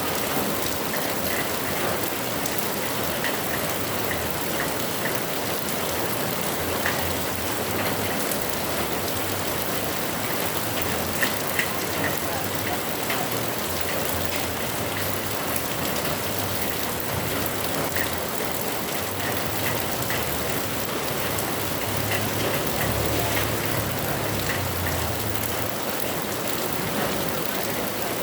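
Heavy rain falling steadily, a dense even hiss with scattered drips and splashes.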